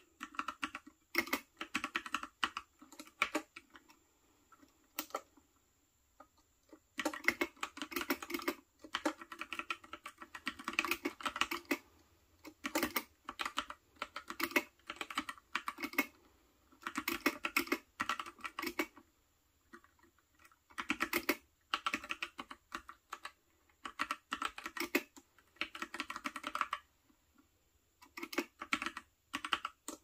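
Typing on the mechanical keyboard of a Freewrite Smart Typewriter: quick runs of key clicks in bursts of a second or two with short pauses between, and a longer, sparser pause a few seconds in.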